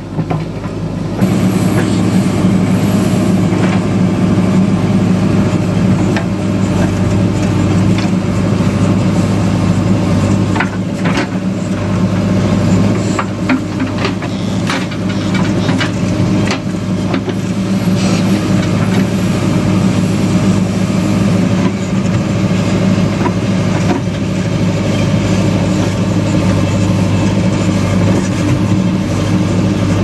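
JCB backhoe loader's diesel engine running steadily as the backhoe digs a roadside trench, with scattered knocks from the working arm and bucket. About a second in, the sound gets louder and closer, heard from the operator's seat.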